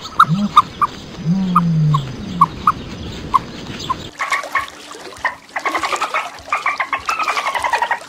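Short high chirping notes over a few low rising-and-falling hoots, then, about four seconds in, a pod of dolphins underwater, whistling and buzzing with rapid click trains, their whistles falling in pitch.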